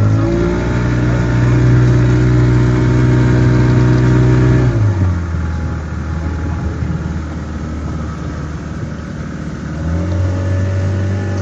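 Boat engine running under way. Its pitch and level rise just after the start and hold, drop about five seconds in as the throttle is eased off, then rise again near the end.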